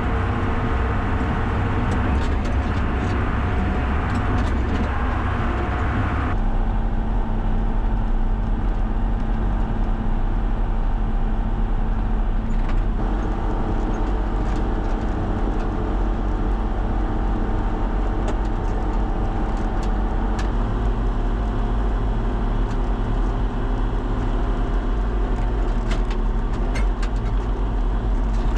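Tractor engine running steadily under way while hauling manure. About six seconds in the sound abruptly turns duller, and its low note shifts again near twenty seconds.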